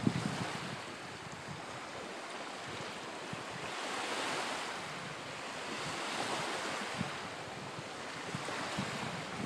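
Small waves washing against the shore, swelling and fading every two or three seconds, with wind buffeting the microphone now and then.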